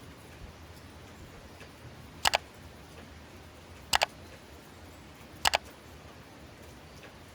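Steady light rain, broken by three loud, sharp double clicks evenly spaced about a second and a half apart.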